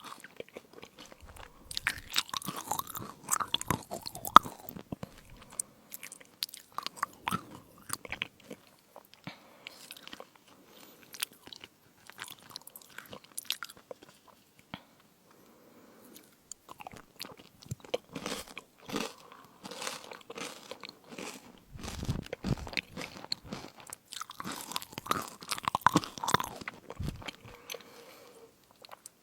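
Close-miked crunchy chewing and biting of fruit crisps, in bouts of crackling bites with a sparser, quieter stretch in the middle.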